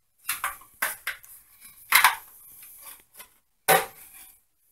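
Hard plastic clicks and knocks as a white plastic marine toilet paper holder is handled and a roll is fitted into it: about five sharp knocks with faint rustling between, the loudest about two seconds in and again near the end.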